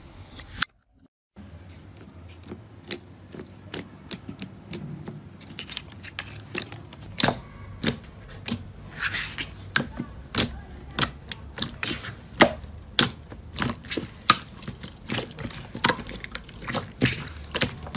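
Slime being squeezed and poked by hand, giving dense, irregular sharp clicks and pops, several a second, after a brief gap about a second in.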